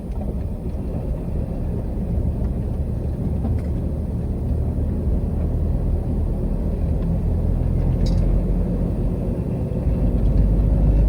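Heavy truck driving, heard from inside the cab: a steady low engine and road rumble that gets louder near the end. There is one brief high squeak about eight seconds in.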